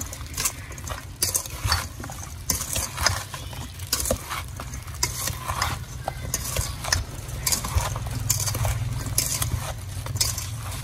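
Sliced green mango, guava and pineapple being tossed with seasoning in a stainless steel bowl. The wet fruit pieces clatter and slap against the metal in a quick, uneven rhythm of roughly two tosses a second.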